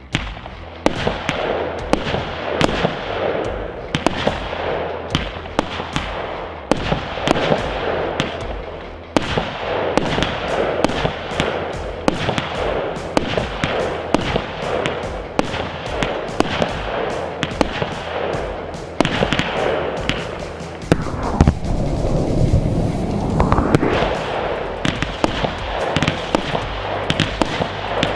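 Weco 'Big Surprise' 51-shot firework battery firing shot after shot: a rapid, uneven string of sharp launch and burst bangs. A heavier rumble comes a little past two-thirds of the way through. Background music plays underneath.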